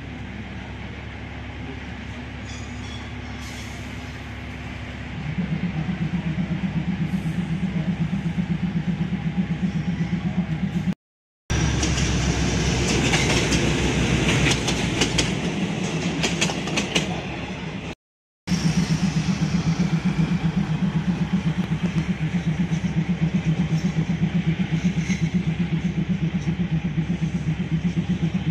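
Passenger train running along the track, heard from on board: a steady rumble of wheels on rails with a fast-pulsing low hum that grows louder about five seconds in. The sound breaks off twice for a split second.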